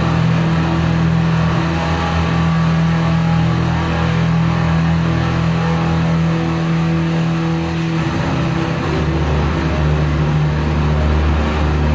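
Loud wall of heavily distorted electric guitar, a Travis Bean, droning on sustained notes through a PA, with a lower note swelling in about eight seconds in.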